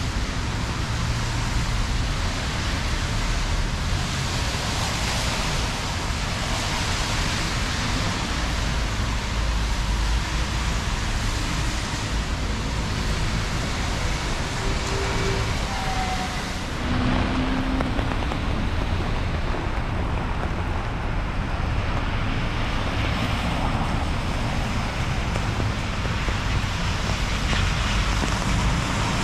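Rainy city street ambience: steady traffic noise with a low rumble and the hiss of wet pavement, which eases a little past halfway.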